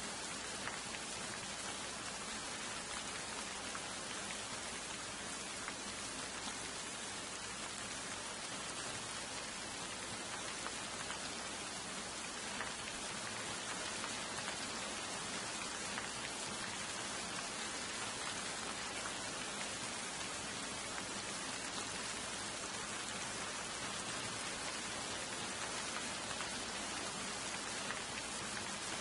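Steady rain falling, an even hiss with faint scattered drop ticks that holds unchanged throughout.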